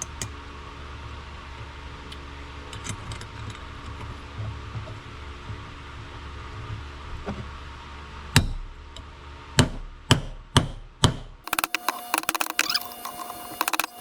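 Hammer blows on steel driving a bearing race into a truck wheel hub: a few faint taps, then five sharp, loud strikes in quick succession, followed near the end by rapid metallic clattering and ringing.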